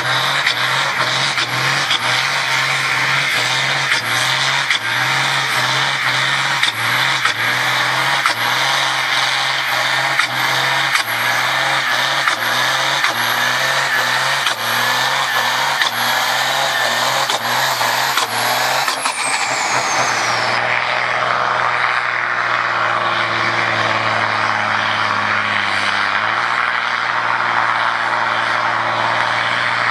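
Diesel farm tractors running flat out while hauling a weight-transfer sled in a tractor pull. First a blue Ford, its engine pulsing about twice a second, ending with a high falling whine about two-thirds through. Then a John Deere with a steadier engine note that steps down in pitch near the end.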